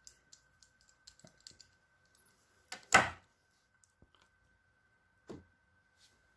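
Light metallic clicks and ticks as the winding crank of a Columbia Grafonola no. 112 gramophone is turned anti-clockwise and unscrewed, then a sharp loud knock about three seconds in and a softer knock about two seconds later.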